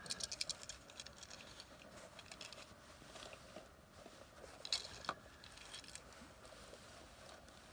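Faint light clicks and ticks from small die-cast toy cars and their turning display stand being handled: a quick run of small ticks at the start, then a couple of sharper clicks about five seconds in.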